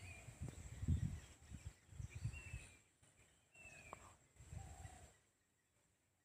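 Birds calling in open country: a few short chirps and falling whistles, over faint low rumbles of wind on the microphone. The rumbles die away about five seconds in, leaving near quiet.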